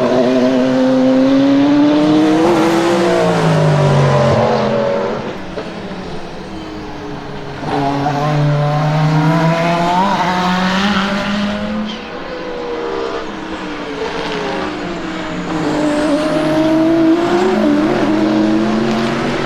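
LMDh hybrid hypercars passing one at a time at racing speed, three passes in all, each engine note climbing through the gears and then dropping as the car goes by. The first is the BMW M Hybrid V8's twin-turbo V8; from about ten seconds in it is the Alpine A424.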